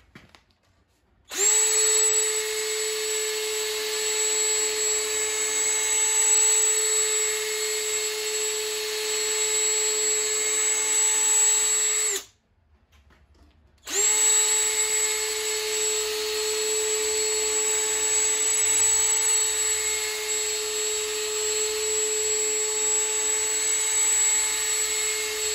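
Cordless drill spinning a chamfering cone against the top edges of a V8 engine block's cylinder bores, deburring them to break the sharp corners so the pistons go in without damaging the rings. It runs twice, about ten seconds each with a short pause between: a steady motor whine over scraping.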